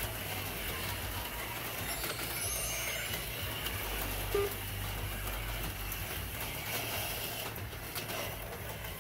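HO-scale slot cars running laps on a plastic track, their small electric motors making a steady whirring noise, with a steady low hum underneath.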